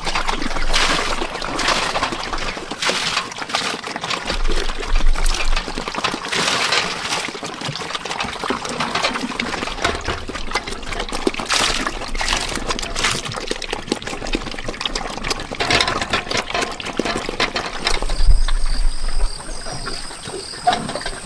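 Water being splashed and poured in irregular sloshes. Near the end a steady high-pitched drone comes in.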